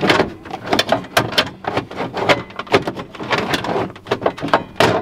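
Hard plastic interior trim pieces on a Nissan 350Z centre console being handled and popped out by hand: a quick, irregular string of clicks, knocks and rattles.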